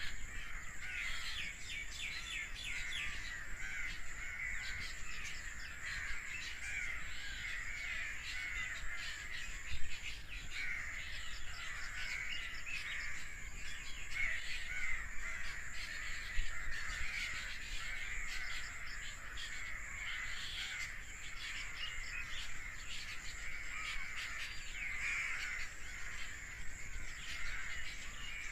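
A flock of birds calling continuously, many short harsh calls overlapping in a dense chorus, over a steady high-pitched tone.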